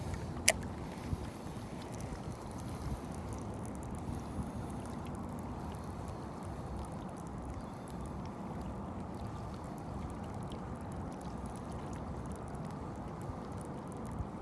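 Steady water and wind noise around a small fishing boat, mostly low rumble, with one sharp click about half a second in.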